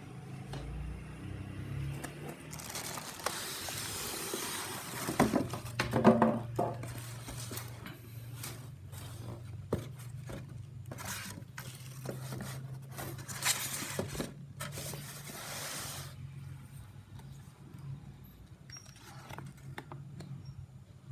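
Packaging and parts being handled: rustling and scraping with scattered clicks and knocks, a louder clatter about six seconds in, over a faint steady low hum.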